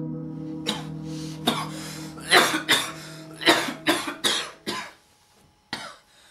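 A person coughing in a fit of about ten harsh coughs, the last one coming alone after a short pause. Under them a steady ambient music drone of held tones plays, then breaks off shortly before the last cough.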